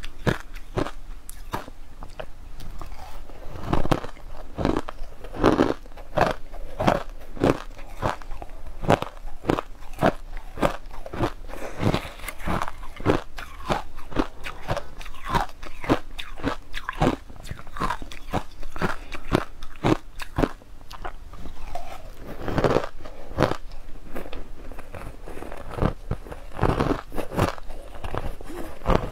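Close-up crunching and chewing of mouthfuls of colored crushed ice: a dense, uneven run of sharp crunches, several a second.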